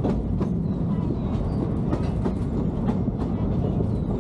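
Narrow-gauge park train's open passenger car rolling along the track: a steady rumble with irregular clickety-clack clicks of the wheels over the rails.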